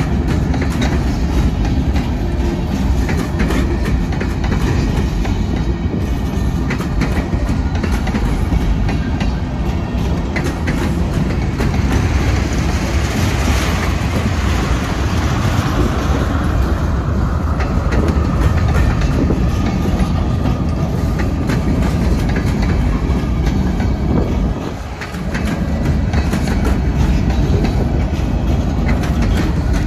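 CSX freight train rolling past at close range: a steady heavy rumble with the wheels clacking over the rail joints. A faint squeal of steel wheels rises about halfway through and fades after a few seconds.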